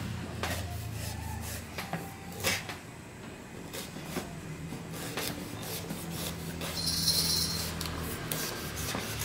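Kitchen knife cutting and sawing through a tough galangal root on a wooden cutting board: irregular knocks of the blade with rasping strokes, one louder rasp about seven seconds in.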